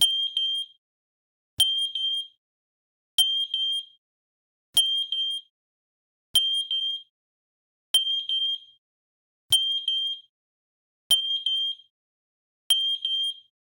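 Paired MATelec FSA-30000 smoke alarms sounding their network test: a high piezo beep repeated nine times, about one every second and a half, each starting with a click. The chirping of all alarms together is the sign that they are correctly paired.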